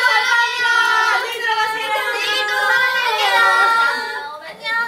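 A group of young women's voices singing and calling out together, unaccompanied, in drawn-out notes that glide up and down, dipping briefly near the end.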